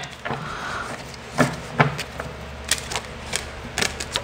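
Tarot cards being shuffled by hand: about eight sharp snaps and taps of the cards against each other and the deck, at uneven intervals.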